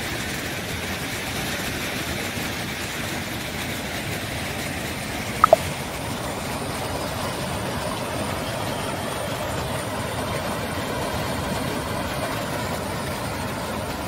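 Chalakudy River rapids running fast and full with monsoon water, a steady rushing of water over rocks. About five and a half seconds in, a brief, sharp falling squeak cuts through it.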